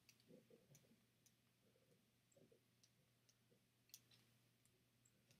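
Several faint, irregularly spaced clicks of TV remote-control buttons being pressed to move across an on-screen keyboard, against near silence with a faint steady hum.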